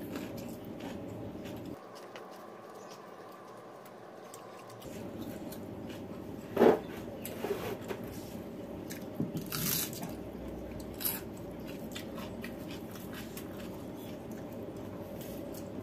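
A person chewing and biting a meal of rice and fried food with raw cabbage leaves, eaten by hand, with a few sharp crunches, the loudest about six and a half seconds in, over a steady background hum.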